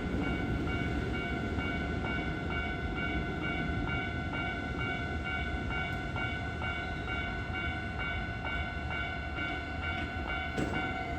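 Railway level-crossing warning bell ringing in a quick, steady rhythm, over the rumble of a passing Hankyu train that is loudest at the start.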